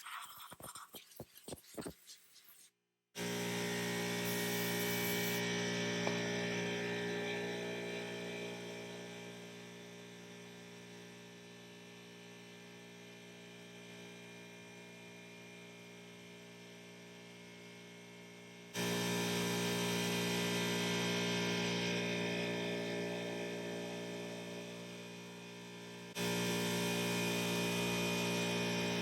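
A few seconds of light clicks and handling noise, then a steady machine hum at a fixed pitch. Its level drops and jumps back up abruptly twice.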